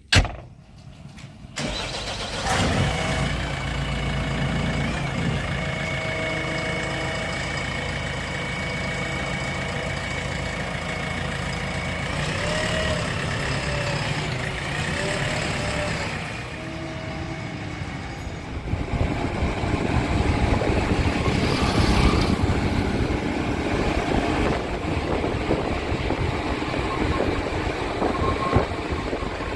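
Diesel engine of a JCB 3DX backhoe loader at work: a sharp knock at the very start, then the engine comes in about two seconds later and runs steadily with a high tone over it. It grows louder and rougher about two-thirds of the way through.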